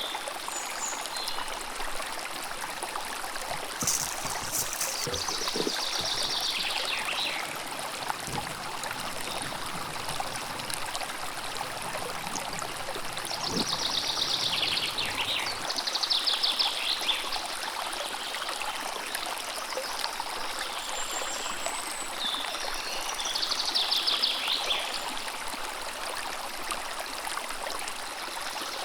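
River water running steadily, with birds singing short phrases of quick notes over it several times, some phrases falling in pitch.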